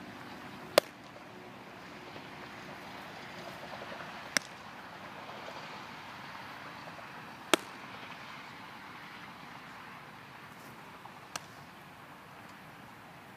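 Baseball smacking into a leather glove four times, a few seconds apart, each a sharp pop, the last one faint.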